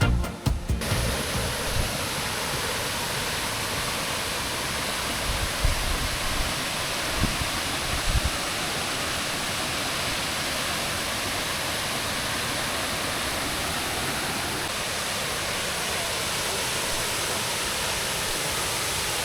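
Steady rush of water falling at Thiririka Waterfall on the Thiririka River, with a few low thuds in the first half, like wind buffeting the microphone. A music track cuts off in the first second.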